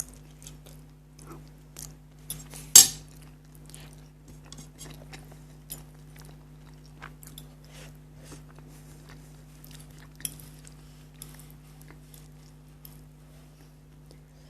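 Close-up eating sounds of spicy noodles being chewed, with scattered small clicks of cutlery against the dish and one sharp, loud clink nearly three seconds in.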